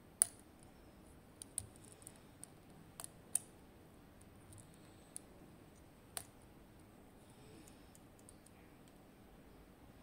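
Lock pick and tension wrench clicking in the keyway of an Assa 700 pin-tumbler cylinder as its pins are worked during picking. The clicks are short, sharp and irregular: several in the first three seconds, the loudest just after the start, then a couple more and none after about six seconds.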